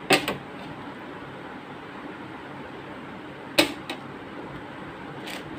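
A surveillance hard disk knocking against the DVR's sheet-metal chassis as it is handled and set in place. There are two sharp clacks, one right at the start and one about three and a half seconds in, each with a smaller knock just after, and a softer tap near the end.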